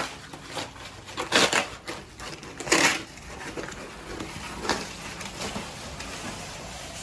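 Packing material being rustled and crushed as a carbon fiber front lip is unwrapped and pulled out. Two louder rushes come about one and a half and three seconds in.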